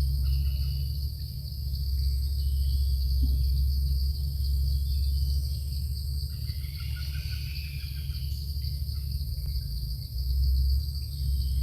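Insects buzzing in a steady high drone, over a constant low rumble, with faint chirps now and then.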